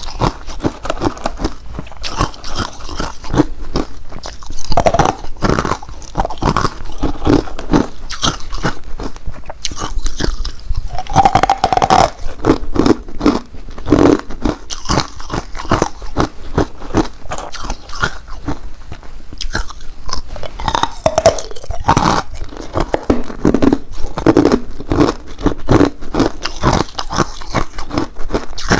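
A person biting and chewing ice cubes close to the microphone: a continuous run of loud, irregular crunches and cracks as the ice breaks between the teeth.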